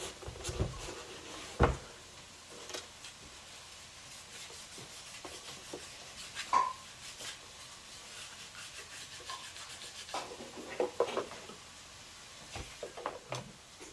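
A cloth rubbing back and forth over a car door card as it is cleaned down, with a few scattered knocks and clicks.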